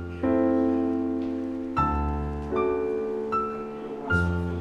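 Slow background piano music: chords struck every second or so, each ringing out and fading.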